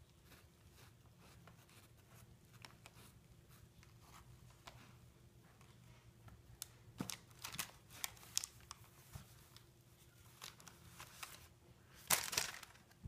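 Crinkly catnip toys shaped like snack bags rustling and crackling as a cat paws and bites at them, in scattered small crinkles, with a louder rustle about twelve seconds in as one toy bag is knocked off the box.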